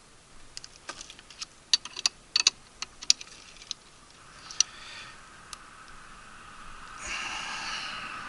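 Small metal clicks and taps of burner gas orifices and a nut driver being handled while the orifices are swapped for propane ones, about a dozen in the first half. A rustling noise builds through the last few seconds.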